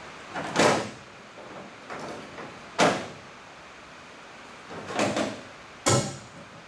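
Four short scraping knocks from hands-on work on car body parts, the second and fourth starting sharply.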